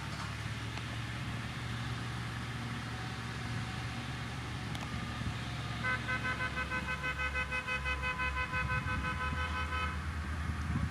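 Heavy road-building machinery engine running steadily. From about six seconds in, a rapid pulsing beep like a machine's warning alarm sounds for about four seconds.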